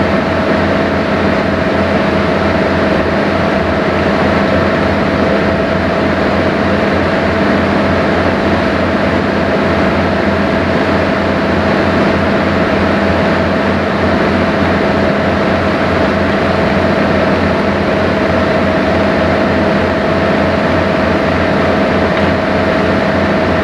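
Sightseeing boat's engine running steadily underway: an even drone with a steady whine and a fast low throb.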